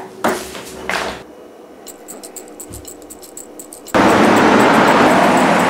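Quiet room tone, then about four seconds in a sudden cut to loud, steady roadside traffic noise.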